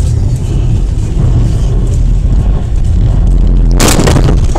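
Loud, steady low rumble of a car moving on a snowy road, then a heavy crash impact about four seconds in: a sharp noisy bang lasting about half a second.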